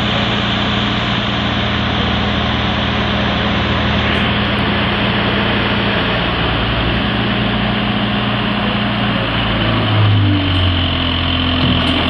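Diesel engine of a Case backhoe loader running steadily as the rear bucket digs. About ten seconds in, the engine note changes and gets louder.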